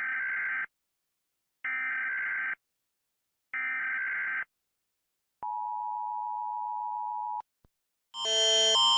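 Emergency Alert System header: three identical warbling data bursts, each about a second long with short pauses between, then a steady two-tone attention signal for about two seconds. Near the end a much louder electronic alarm sound starts, its tones switching in steps.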